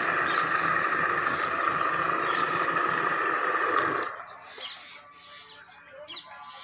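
Water pump motor running steadily, then switched off about four seconds in, cutting out abruptly.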